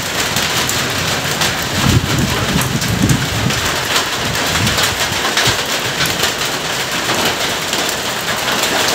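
Steady rain falling and splashing on a wet rooftop, with a low rumble of thunder about two seconds in that lasts a second or so.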